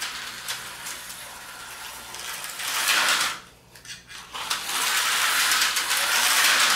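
Tyco 440-X2 HO slot car running on plastic track, a hissy electric whir with light clicks from its motor and pickup shoes. It dies away for about a second just past the middle, then picks up again, louder and steady. The freshly oiled motor is being run in.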